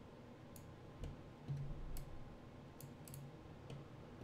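A few faint, scattered computer mouse clicks over low room noise.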